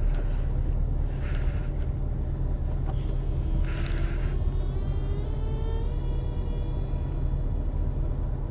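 Mercedes-Benz truck's V8 diesel engine idling, heard from inside the cab, with two short hisses about one and four seconds in and a faint, slowly rising whine in the middle.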